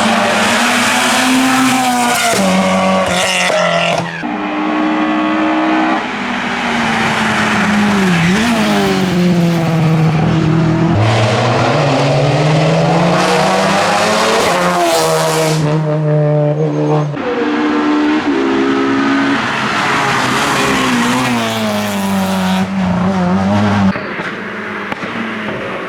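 Hillclimb race car engine running hard, its pitch climbing and dropping in repeated steps as it changes gear.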